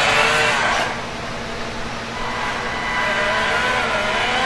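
Motor sound of a 1:14 scale RC dump truck as it drives and turns, dropping in level about a second in and picking up again around three seconds in with a pitch that wavers up and down.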